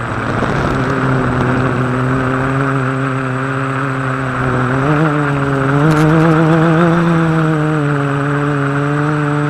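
Quadcopter's electric motors and propellers whirring close to the onboard camera's microphone, a steady pitched drone whose pitch sags and climbs with throttle changes, wavering about five and six seconds in, with a short rush of air noise near the start.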